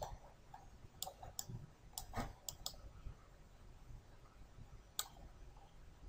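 Faint clicks of a computer mouse, about seven in all: six in the first three seconds and one more about five seconds in.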